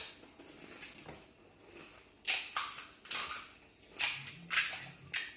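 Crisp fuchka (pani puri) shells being bitten and chewed fast, about half a dozen sharp crunches from about two seconds in.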